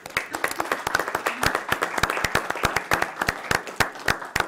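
Audience applauding: dense clapping that thins to a few scattered claps near the end.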